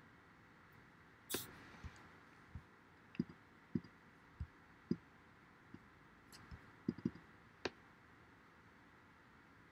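Faint, scattered clicks and light knocks, about a dozen spread over several seconds at no regular rhythm. The sharpest and loudest comes about a second in.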